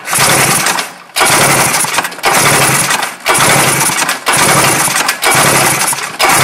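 Polaris 600 XLT two-stroke triple being cranked over for a compression test on the hot engine, in about six strokes roughly a second apart, each a loud noisy burst with a short break between; the gauge climbs to about 120 psi.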